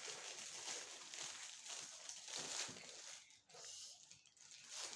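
Soft rustling and handling noises, with a few light knocks, as a small boxed smartwatch and its packaging are handled.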